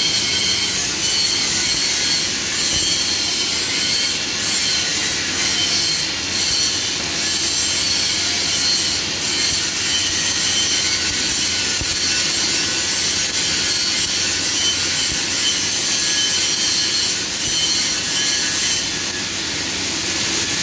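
Electric arc welding: the arc runs with a steady crackling hiss.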